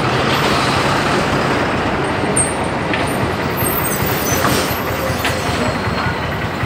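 Steady road traffic noise, with vehicle engines running and a few brief knocks.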